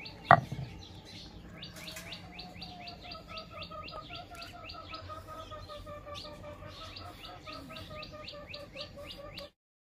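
Small birds chirping in rapid, evenly repeated short notes, about four or five a second, over a lower, slower run of whistled notes. There is one sharp knock just after the start, and the sound cuts off abruptly near the end.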